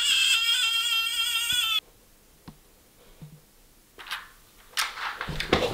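A man's high, steady wailing cry, held for nearly two seconds and cut off abruptly. After a near-quiet pause come rustling and knocking from bedding and body movement near the end.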